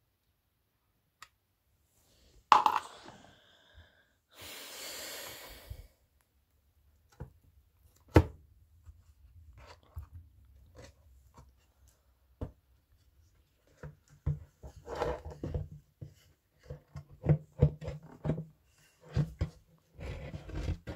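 Hand work on a Sony speaker being taken apart: scattered clicks and knocks, a sharp knock with a brief ring about two and a half seconds in, and a rushing scrape lasting about a second and a half soon after. A busy run of clicks and rattles fills the last third.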